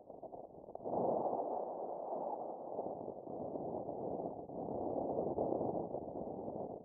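Wind rushing over the microphone as the paraglider flies, a rough steady noise that swells about a second in and then rises and falls in gusts.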